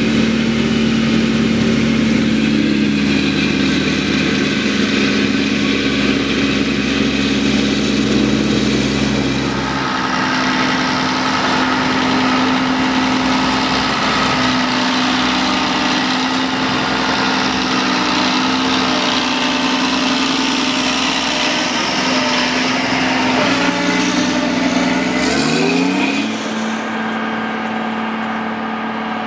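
Heavy diesel engines running steadily: a John Deere 6850 self-propelled forage harvester chopping maize with a Fendt tractor and trailer alongside, then a Fendt tractor pulling a loaded silage trailer along a road. The sound changes abruptly about ten seconds in and again near the end, where an engine's pitch rises briefly.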